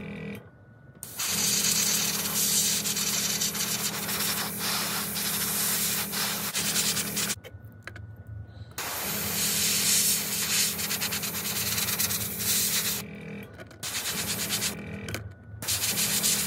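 Airbrush spraying black paint in long hissing passes over a steady hum, cutting off briefly about a second in, for about a second and a half around eight seconds in, and twice for a moment near the end.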